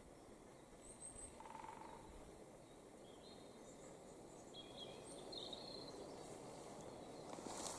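Faint outdoor woodland ambience with scattered short, high-pitched bird chirps. A rustling, crackling noise starts near the end.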